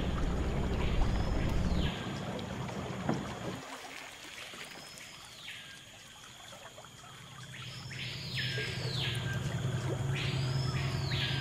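A bird calling again and again, each call a whistled note that sweeps up and back down, several in quick succession in the second half. Under it runs a low steady hum that fades out after about two seconds and comes back later.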